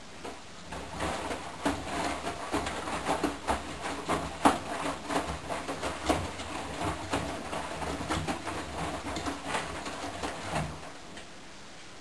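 Candy GO4 1274 LH GrandO Plus front-loading washing machine's drum turning for about ten seconds. The wet laundry swishes and thumps unevenly as it tumbles, then the drum stops near the end.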